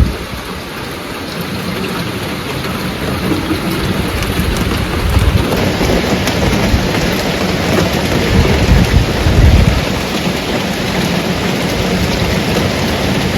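Heavy monsoon rain pouring down in a steady hiss that thickens and grows louder about five seconds in, with a few low rumbling swells near the middle.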